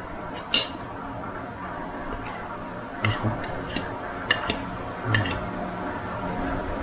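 Spoon and fork clinking lightly against a plate several times during a meal, as short scattered clicks over a steady background hiss.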